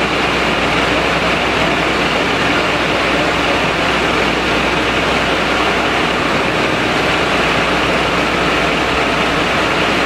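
A fire engine's motor running steadily under a constant rushing noise.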